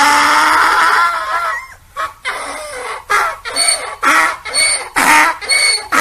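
Donkey braying: one long drawn-out pitched call, then after a short pause a run of rhythmic hee-haw strokes, about two a second.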